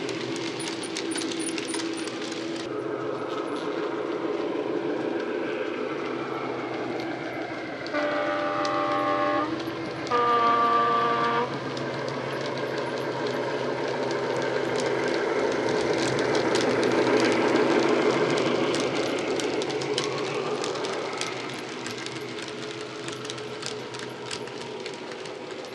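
Dapol Class 73 model locomotive's DCC sound decoder, playing a Legomanbiffo sound file through an EM1 speaker: the engine running sound swells and eases as the loco moves, and the two-tone horn sounds twice about eight seconds in, first the low note and then the high one. Light clicking of the model's wheels on the track runs underneath.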